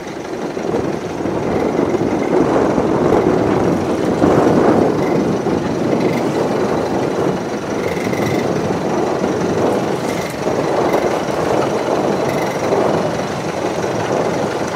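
Strong wind rushing over the microphone above choppy water: a loud, steady noise that swells and eases.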